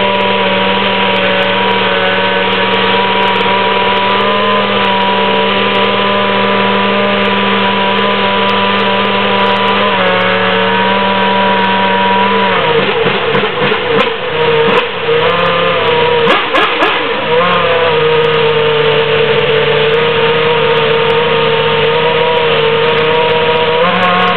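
Formula 1 engine running at steady held revs, one sustained note. It steps down in pitch about ten seconds in, wavers up and down for a few seconds around the middle, then settles on a lower held note.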